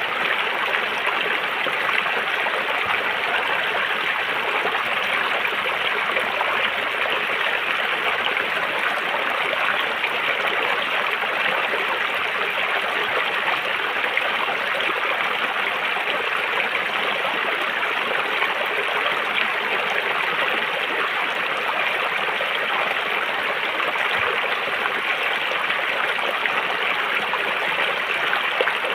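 River water flowing and splashing over stones, a steady rushing burble that stays even throughout.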